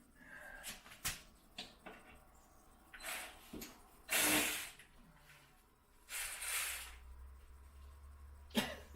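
Hand tools at work on a car's underside: several sharp metal clinks and knocks, with three short rasping bursts of about half a second, the loudest a little after four seconds in.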